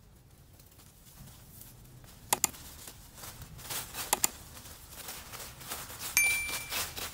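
Dry leaf litter rustling and scraping as a knife clears the forest floor, with sharp clicks twice in pairs from the blade striking. A short high ringing tone near the end.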